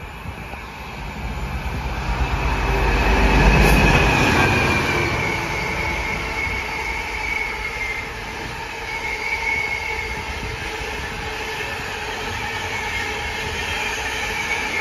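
Freight train passing through a station: the locomotive's deep rumble builds and peaks about four seconds in, then a long rake of empty container flat wagons rolls by with a steady rattle and a high, wavering wheel squeal.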